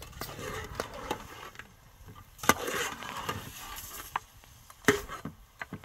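A utensil scraping and knocking against a metal cooking pot as stew is stirred over an open wood fire, with scattered small clicks and two louder knocks about two and a half and five seconds in.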